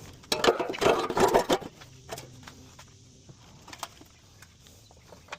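A burst of clattering and knocking lasting about a second, then a few scattered clicks, from hands-on work putting an off-road vehicle up on ramps and a jack stand.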